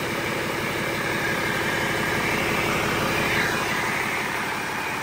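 Cummins ISM 330, a 10.8-litre inline-six diesel, running steadily with an even, rapid pulse from its firing. A hiss higher up swells slightly a few seconds in, then eases.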